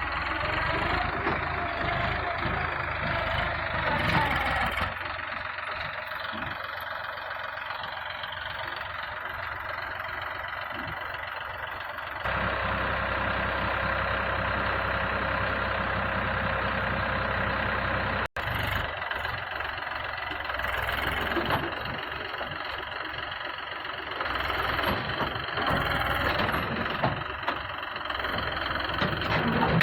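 Diesel engine of heavy earthmoving machinery running steadily. It gets louder and deeper about twelve seconds in, and drops out for an instant at about eighteen seconds.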